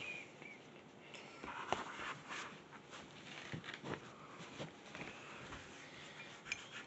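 Faint, scattered light taps and clicks of paintbrushes, paper and hands on a tabletop, with a sharper click near the end as a brush goes into a ceramic rinse mug.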